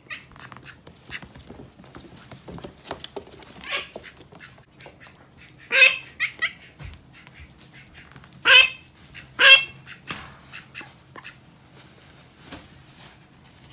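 Pet domestic duck quacking: a few short calls, the three loudest about six, eight and a half and nine and a half seconds in, with light ticks and taps in between.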